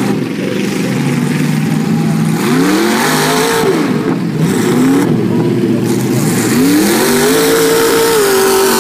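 Off-road mud buggy's engine revving hard as it drives through the mud pit. The revs climb and fall several times, then are held high for a long stretch near the end before dropping.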